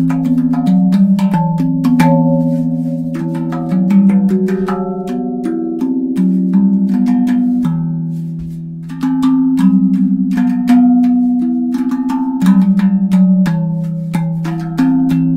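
LotusDrum steel tongue drum played with bare hands: quick finger strikes on the tongues, each note ringing on and overlapping the next. The playing grows softer and sparser a little past the middle, then picks up again.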